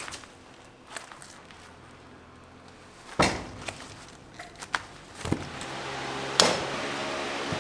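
Gloved hands working warm hard-candy mass and rolling candy ropes on a worktable: scattered knocks and taps, two of them much louder, about three seconds in and near the end. A steady hum rises over the last couple of seconds.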